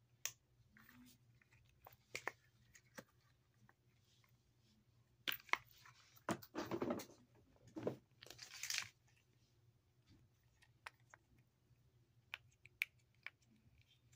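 Silicone pop-it fidget toys handled and set down: scattered light clicks and taps, with a busier stretch of rustling and scraping about midway.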